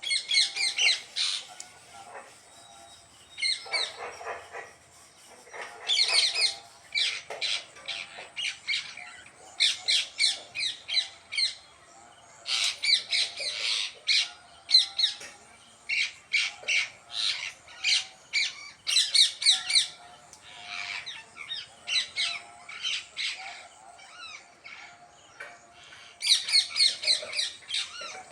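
Parrots squawking in repeated bouts of short, rapid calls, with brief pauses between bouts.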